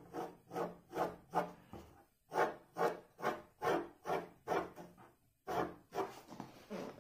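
Graphite pencil scratching on drawing paper in short, quick repeated strokes, about two to three a second, as an ellipse is sketched. The strokes pause briefly about two seconds in and again about five and a half seconds in.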